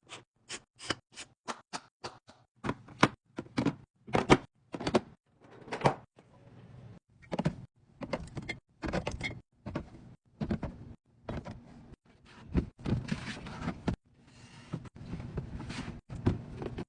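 Plastic containers and food items being handled and set into a fridge: a quick, irregular string of sharp clicks and knocks, then fewer knocks mixed with longer stretches of rustling and sliding.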